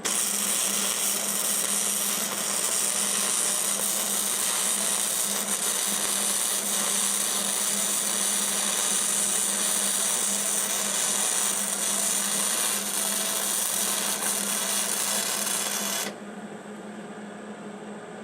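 MIG welder arc crackling and hissing steadily as a weld bead is run along a steel tractor wheel rim to seal an air leak. It starts sharply and cuts off suddenly about sixteen seconds in.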